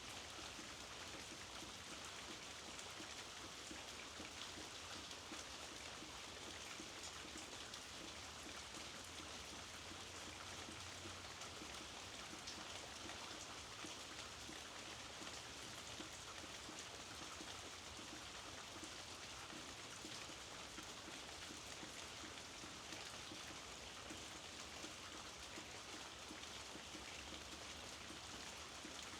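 Steady rainfall with individual drops pattering on surfaces, an even hiss without a break.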